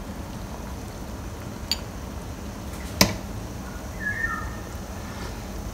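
Soup stock simmering in an enamel pot with a steady low hiss. A metal ladle clinks sharply against the pot once about three seconds in, after a fainter tap a little earlier.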